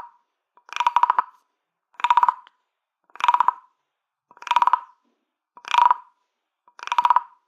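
Wooden croaking toy frog, a stick scraped along its ridged back, giving a run of rapid clicks that sound like a frog's croak. About six croaks, each about half a second long, come at an even pace of roughly one every 1.2 seconds.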